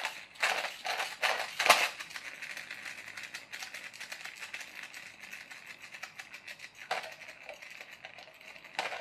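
Flywheel friction drive of a toy Ferrari F40 car. The wheels are flicked round by hand with a few scraping strokes, then the flywheel gears whirr with a fine rattle that slowly fades, with a couple of clicks near the end. The drive is stiff: the wheels are not very free running.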